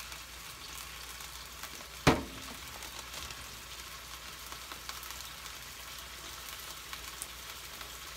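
Vegetables frying in oil in a frying pan, a steady sizzle. About two seconds in there is one sharp metallic knock with a short ring: an aluminium drinks can set down on the stainless-steel counter.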